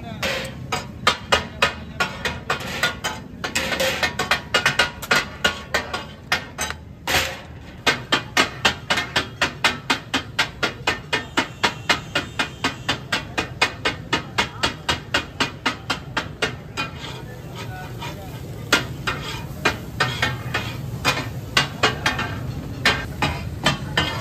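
Steel spatulas clattering rhythmically on a large flat iron griddle (tawa) as katakat is chopped. There are about four sharp metal strikes a second through the middle stretch, sparser near the end, over busy background chatter.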